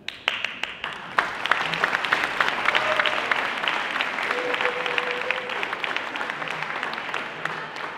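Audience applauding: the clapping starts suddenly, holds thick and steady, then thins out near the end.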